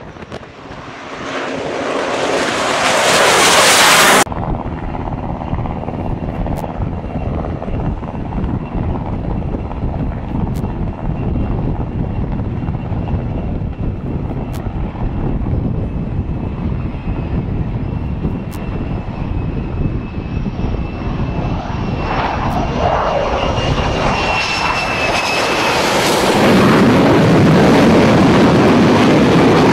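Jet noise from F-35C fighters, each with a single turbofan engine, on carrier landing approach. It swells loud as one passes close overhead and breaks off abruptly about four seconds in. Steadier, more distant jet noise with a thin high whine follows, then the noise grows loud again over the last several seconds as another jet comes in to land.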